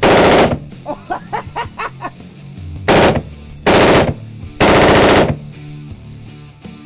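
Assault rifle firing on full auto in four short bursts: one right at the start, then three more close together from about three to five seconds in.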